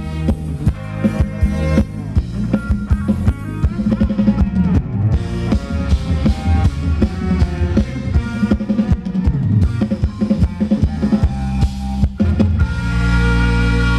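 Thai ramwong dance music from a band: a drum kit with bass drum and snare keeps a steady beat under a melody. Near the end the drumming stops and a long chord is held.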